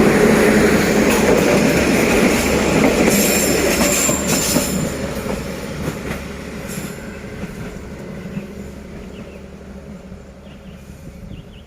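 Passenger train running past on the rails, its wheels squealing about three to four seconds in, then the rumble dying away as the train moves off.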